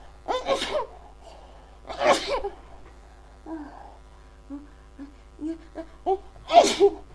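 A woman sneezing three times in a fit: once near the start, again about two seconds in, and a third time near the end. Short, faint breathy sounds come between the second and third sneeze.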